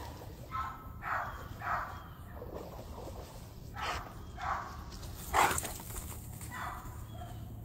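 A dog barking about seven times in uneven groups, the loudest bark about five and a half seconds in, with faint bird chirps in the background.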